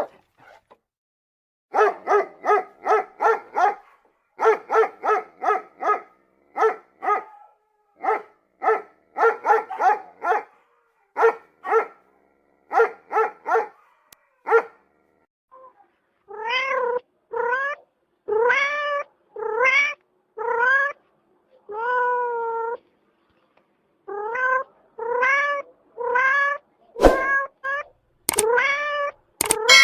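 A cat meowing over and over. First come quick runs of short meows, about three a second. Then come longer meows that each rise in pitch. Near the end there are a few sharp clicks.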